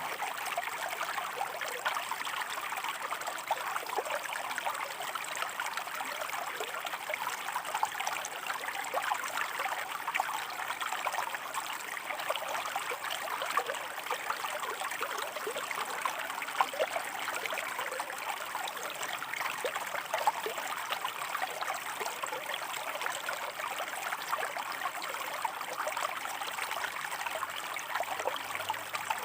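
A shallow stream running over rocks in a steady babble, full of small trickles and splashes, with no pauses or changes.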